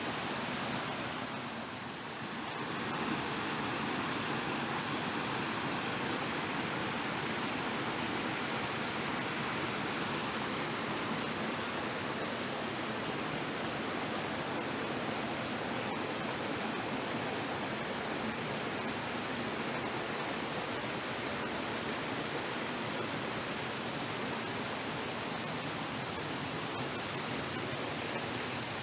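Steady rush of running water, falling or cascading, with a brief dip in level about two seconds in.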